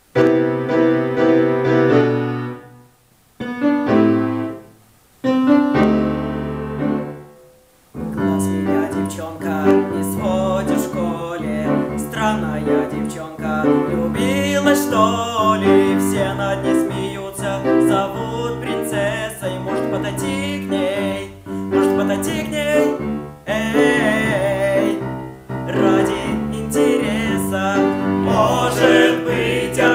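Grand piano playing a song introduction: three held chords broken by short pauses, then a continuous flowing accompaniment from about eight seconds in. Male voices singing with vibrato join over the piano in the second half.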